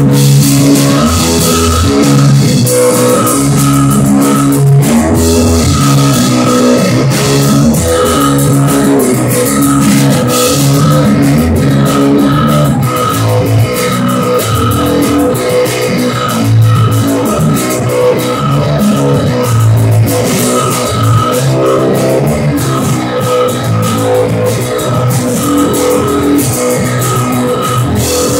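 A rock band playing live through amplifiers: electric guitar, electric bass and drum kit together, a repeating riff over a steady beat.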